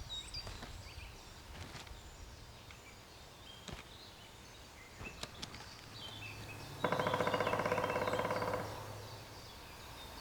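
Woodpecker drumming: a single very rapid roll of beak strikes on resonant dead wood, lasting nearly two seconds and starting about seven seconds in. Soft songbird chirps and a few faint taps sound around it.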